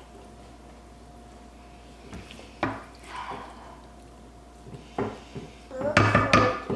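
Serving spoon clinking and scraping against a ceramic serving bowl and plates as food is dished out: a single clink about two and a half seconds in, another near five seconds, then a louder cluster of clinks near the end.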